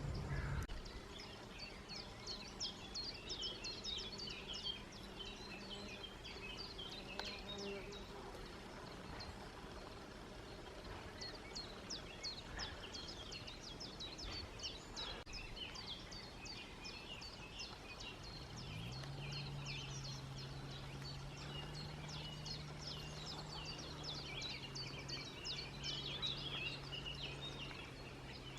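Small birds chirping and twittering steadily. About two-thirds of the way in, an insect's low buzz rises briefly in pitch and then holds steady to the end.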